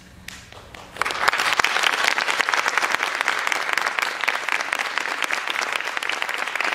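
Audience applauding: a few scattered claps, then full, dense applause swelling in about a second in and carrying on steadily.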